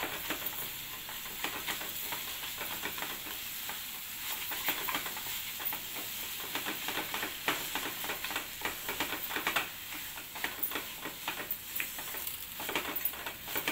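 A spatula stirring and scraping mashed sweet potato and sugar around a non-stick kadhai in repeated, irregular short strokes, over a steady sizzle of the mash frying in ghee.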